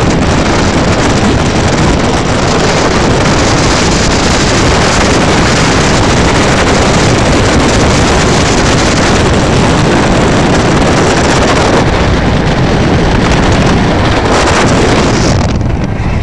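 Strong wind rushing over the microphone of a camera held out of a fast-moving vehicle's window, a loud steady roar of air mixed with road noise, dropping away near the end as the camera is pulled back inside.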